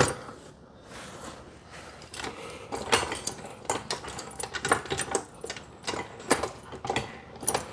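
Irregular run of small plastic and metal clicks and rattles: a nylon zip tie being threaded and ratcheted tight to hold a fuel line out of the way.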